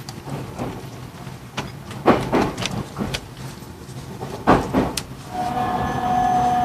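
JR Central 373 series electric train rolling slowly into a station: its wheels clunk over rail joints and points, several clunks coming in pairs. About five seconds in, the Toshiba GTO-VVVF inverter starts a steady whine that falls slightly in pitch as the train brakes.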